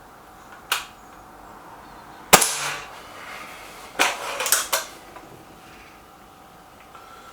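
Stoeger RX20 S2 suppressed air rifle shooting at knock-down targets: five sharp cracks and knocks of shots and pellet strikes. The loudest comes a little over two seconds in, with a brief ring after it, and three come close together at about four to five seconds.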